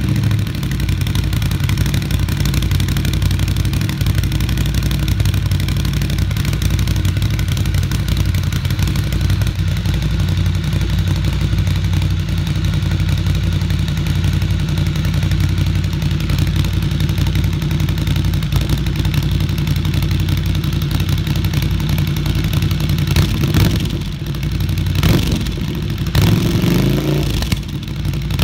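Ducati Scrambler's air-cooled L-twin engine idling steadily through a re-tuned Termignoni SO-02 titanium slip-on exhaust, then given a few short throttle blips in the last few seconds.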